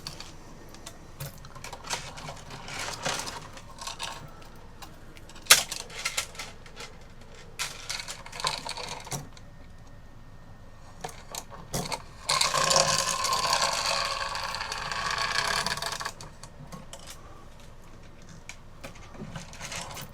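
Cuckoo clock weight chains clinking and rattling as they are hooked and pulled through the clock case, with scattered small metallic clicks. About two-thirds of the way in, a louder continuous rattle lasts several seconds as a length of chain is drawn through over the movement's sprocket.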